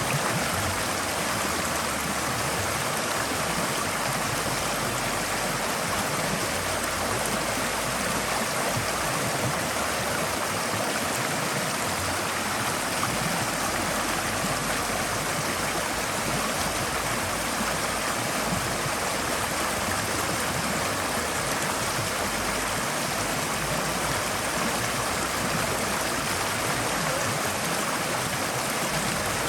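Forest stream flowing over rocks, a steady rushing and gurgling of water that does not change.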